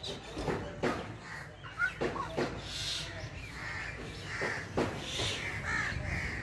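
Rufous treepie calling: a string of short, rough notes mixed with quick upward-sliding notes and sharp clicks, repeated over several seconds.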